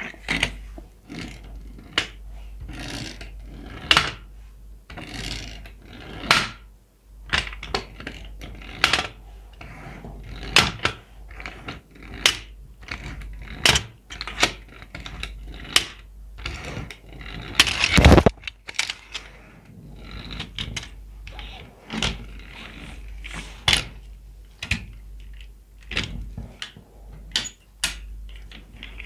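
Toy cars and their plastic packaging being handled and unboxed close to the microphone: irregular sharp clicks, taps and crinkles, a few each second, with the loudest crackling burst a little past the middle.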